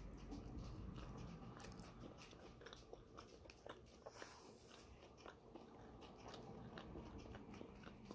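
Faint biting and chewing of a bagel topped with chickpea salad, with small soft crunches scattered through it.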